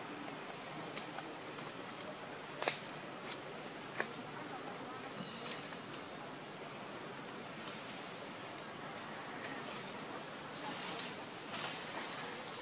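Steady, high-pitched drone of insects in the forest, unbroken throughout, with two short sharp clicks about three and four seconds in.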